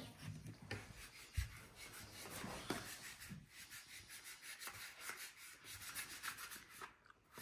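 Faint rubbing and scraping of Kinetic Sand being pounded and pressed into a plastic mould cup, with light irregular taps and one soft knock about a second and a half in.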